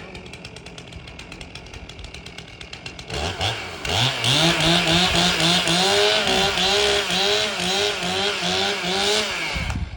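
Two-stroke carving chainsaw idling, then revved up about three seconds in and held at high speed for several seconds with its pitch wavering up and down. It cuts off suddenly near the end.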